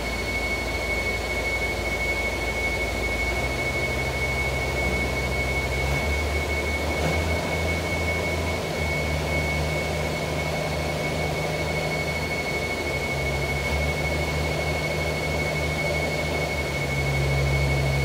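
Crawler crane's engine running steadily while it holds concrete sheet piles, its low pitch shifting up and down several times and a little louder near the end, with a steady high whine over it. No hammer blows.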